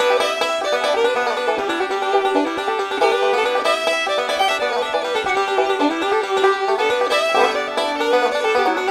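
Background music: a quick-moving plucked-string tune.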